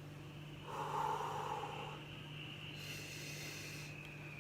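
A woman taking slow, deep breaths during steam inhalation over a bowl of hot herbal infusion: a strong noisy breath about a second in and a softer, airier one near three seconds, over a steady low hum.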